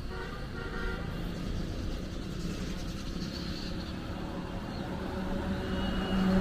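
Street traffic: motor vehicle engines running and passing over a steady low rumble that grows a little louder near the end.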